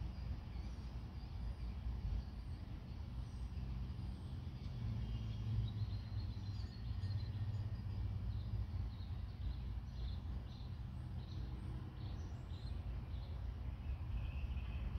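Outdoor ambience: a steady low rumble, with small birds chirping faintly now and then and a run of quick chirps in the last third.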